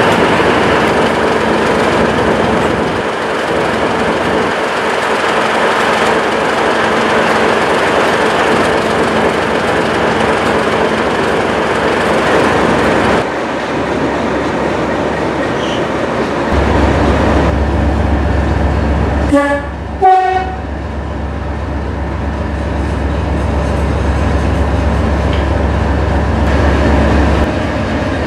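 Diesel locomotive engine running steadily, with a brief horn sounding about twenty seconds in.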